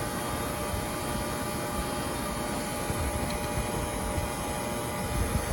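HVAC vacuum pump running steadily while evacuating an air-conditioning system. It is pulling a deep vacuum, with the micron gauge at about 87 microns.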